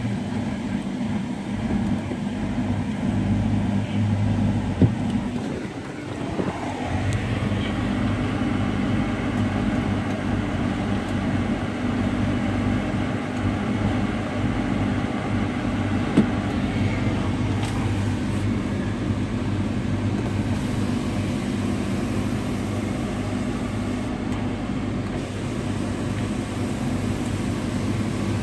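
2008 Ford F-150 pickup's engine idling steadily, heard from inside the cab. A sharp click cuts in about five seconds in and again about sixteen seconds in.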